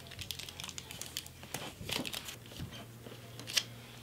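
Handling noise from a Coach Pillow Tabby's crossbody strap being shortened through its metal buckle: scattered light clicks and rustling, with one sharper click about three and a half seconds in.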